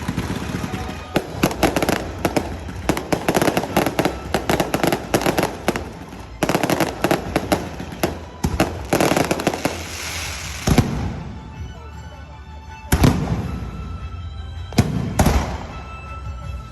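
Fireworks going off: a dense run of rapid crackling bangs, a brief break about six seconds in, another dense run ending about eleven seconds in, then a few single loud bangs near the end.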